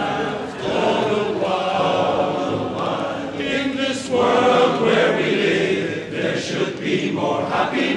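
Men's barbershop chorus singing a cappella in close harmony, phrase after phrase with short breaths between.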